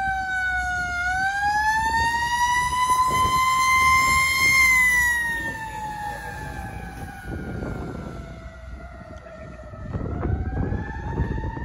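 Fire engine siren in a slow wail: the pitch dips, climbs for about three seconds, then falls slowly for several seconds before winding up again near the end. A low rumble grows near the end.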